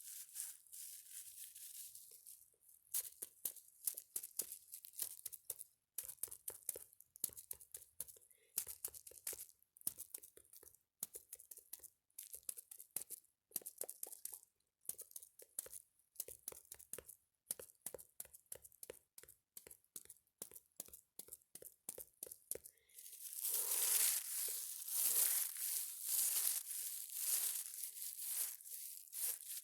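Close-miked ASMR trigger sounds: rapid, irregular crisp crackling and clicking, turning into louder, denser crunching and crinkling for the last several seconds.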